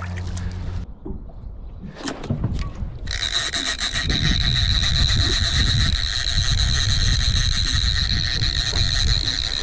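A fishing reel whining loud and steady as a hooked sturgeon pulls line off it against the drag, starting about three seconds in. Before that there are a few knocks and some handling noise.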